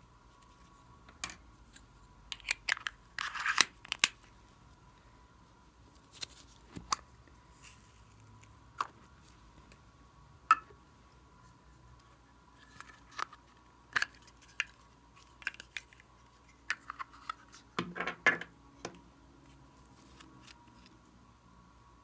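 Small plastic cosmetic containers being handled, clicked open and shut, with scraping and tapping as their contents are dug out: scattered sharp clicks, with busier clusters about three seconds in and again late on. A faint steady whine runs underneath.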